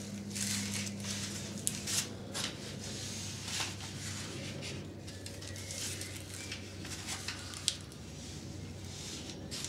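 Hands binding a chip-bud graft on a young apple tree's stem close to the microphone: soft rustling and handling with a few short sharp clicks, over a steady low hum.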